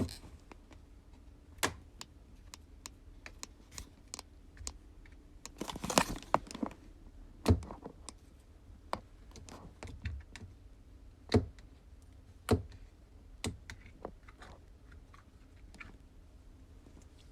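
Slime being played with by hand, giving irregular sharp clicks and pops, with a denser crackling run about six seconds in.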